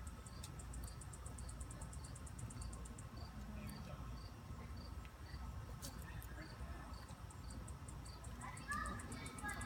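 Insects chirping steadily: a fast train of very high pulses over a slower, even beat of about two to three chirps a second. A brief squeaky sound rises over them just before the end.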